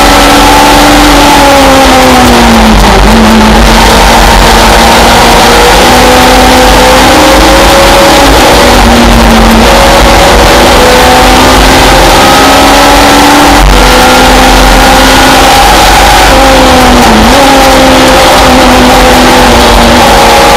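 Simca Rallye 3 race car's engine running hard, heard from inside the cockpit, loud and distorted. Its pitch drops and climbs again several times, about three seconds in, around nine seconds and near the end, with a single sharp click past the middle.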